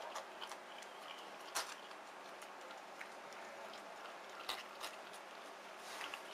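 Tiger cub suckling from a milk bottle: faint, irregular clicks and smacks over a low steady hiss.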